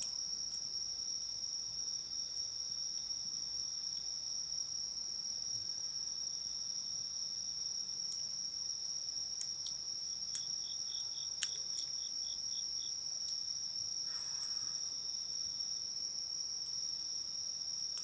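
Night insects trilling in a steady high-pitched drone, with another insect giving a short run of rapid chirps, about four a second, around the middle. A wood campfire gives a few sharp crackling pops around the middle, one of them louder.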